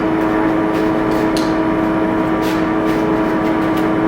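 Steady mechanical hum with a few fixed tones, over which a spoon scooping the sticky shredded-wheat mixture gives a few faint clicks.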